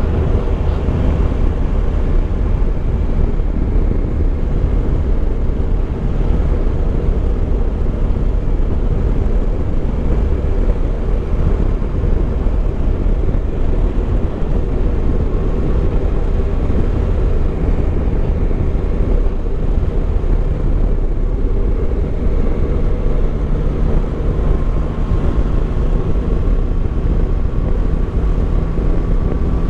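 Yamaha Tracer 9 GT's three-cylinder engine running at steady road speed under heavy wind rush on the camera microphone. The engine note comes through steadier and clearer in the last few seconds.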